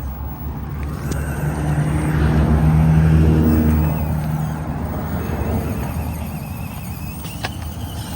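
An engine running as a road vehicle passes, growing louder to a peak about three seconds in and then fading away.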